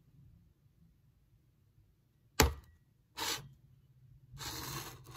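Glass and bottle being handled on a hard surface: one sharp knock about two and a half seconds in, a brief scrape, then about half a second of liquid splashing as whiskey is poured from the bottle into a glass.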